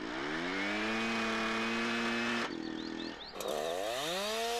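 Petrol chainsaw engine revving up to a steady high speed and holding it. About two and a half seconds in it cuts to a lower running tone with a few short bird-like chirps, then revs up again and holds.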